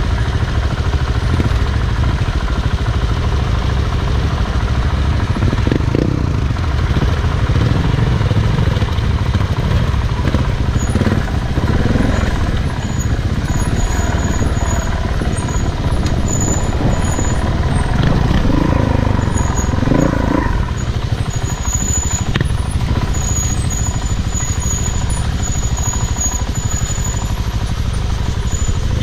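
Off-road motorcycle being ridden on a dirt trail, its pitch rising and falling as the throttle opens and closes, over a heavy low rumble and rattling.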